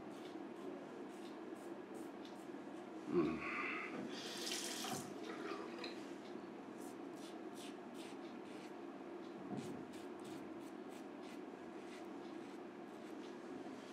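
Mühle R106 safety razor scraping through lather and stubble in many short strokes. A knock at about three seconds is followed by a brief rush of running tap water.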